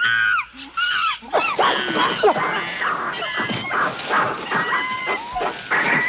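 A group of wild chimpanzees calling excitedly: many high, overlapping calls that rise and fall, growing into a dense chorus after the first second or so.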